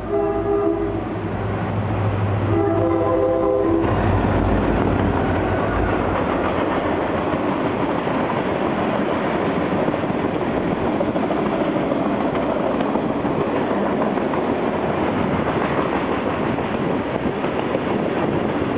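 Multi-note air horn on a pair of SD40-2 diesel locomotives sounding, ending about a second in, followed by one more blast of about a second. The locomotives' low engine drone passes and fades, then the freight cars roll by with a steady roar and rattle of wheels on rail.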